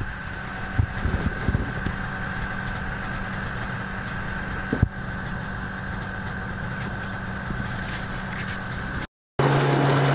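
Snowmobile engine idling steadily, with a few knocks and a sharp click about five seconds in. Near the end the sound cuts to a louder, lower-pitched engine running close by.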